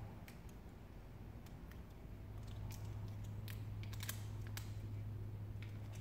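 Small scattered clicks and ticks of a snap-off knife blade and fingers working vinyl wrap film on a loose door handle, over a low steady hum that grows a little louder about two seconds in.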